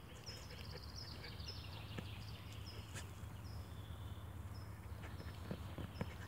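Young Mongolian Bankhar dog digging in sandy forest soil, her front paws giving a few faint scratches and scrapes, the sharpest about two and three seconds in and again near the end. A small bird repeats a short high chirp every half second or so behind it.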